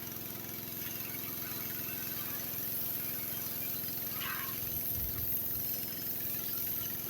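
Pressure washer's horizontal-shaft Honda engine running steadily at constant speed, driving its Cat pump.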